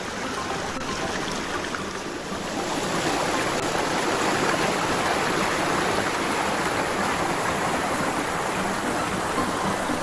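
Mountain valley stream flowing: a steady rush of water that grows a little louder about two and a half seconds in.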